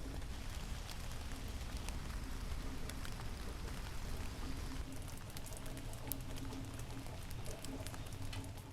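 Rain falling, with many individual drops ticking sharply against a steady hiss, and a faint low hum underneath.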